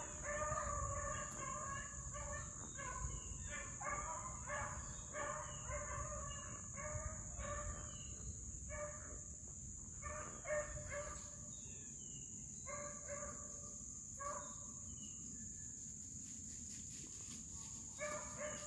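A pack of beagles baying while running a rabbit in thick cover: short, repeated bawls from several hounds, coming thick for the first half and more sparsely after.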